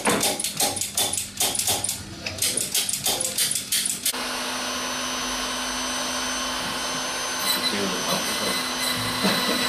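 Rapid sharp tapping, about four strikes a second, then about four seconds in a small electric motor starts abruptly and runs at a steady hum: a key-cutting machine.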